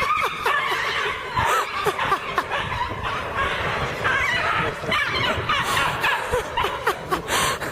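People laughing and snickering, with many short, rapid rises and falls in pitch.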